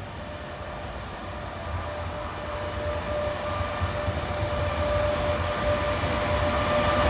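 Trenitalia E.464 electric locomotive hauling passenger coaches, approaching and growing steadily louder. A steady electric whine sits over a low rumble.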